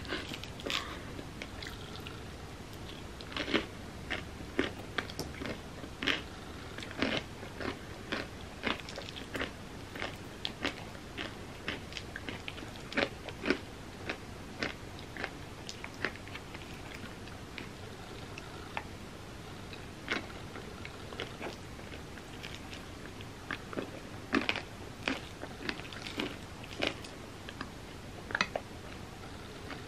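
Close-miked eating of an ice cream sundae with cookie pieces: chewing and crunching, heard as many short, irregular crisp clicks that come in clusters, the busiest near the start and again near the end.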